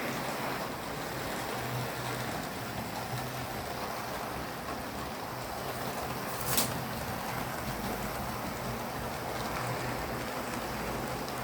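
Hornby OO gauge model steam locomotive running along the track: a steady hum from the motor and a rushing noise from the wheels on the rails, with a single sharp click about six and a half seconds in.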